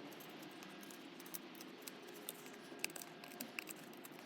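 Blade carving into a dry, hollow Japanese knotweed stalk: faint scraping with small irregular clicks and ticks as pieces are shaved away to weaken it for snapping.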